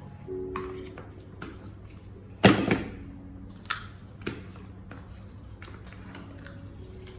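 Scattered knocks and clicks of objects being handled, with one louder knock about two and a half seconds in, over a low steady hum.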